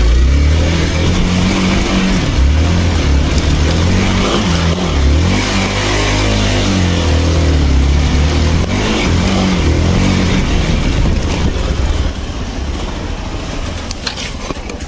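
Motorcycle engine running hard, its revs rising and falling repeatedly, then easing off and fading near the end.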